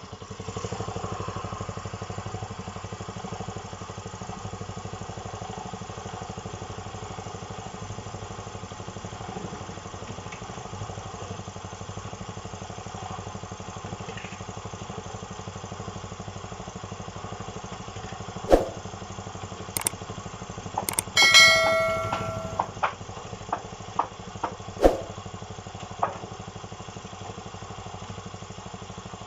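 Cement mixer running with a steady drone. About two-thirds of the way in come several sharp metallic clanks and one ringing metal clang.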